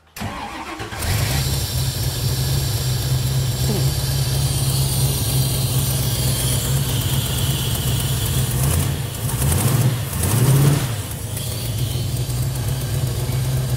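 Carbureted-to-EFI 351 V8 in a 1970 Mustang Mach 1, now on Holley Terminator throttle-body fuel injection, cranking briefly and starting cold straight away with no pumping of the gas, then idling steadily. About ten seconds in the revs rise briefly and settle back.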